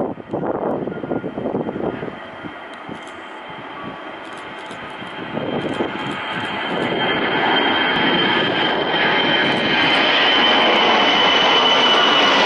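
Ilyushin Il-76 four-engine turbofan jet growing louder as it departs, a steady high whine over a rising roar of jet noise. Wind buffets the microphone for the first couple of seconds.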